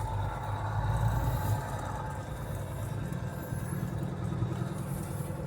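Farm machinery engine running steadily: a low, even engine hum with a faint whine above it.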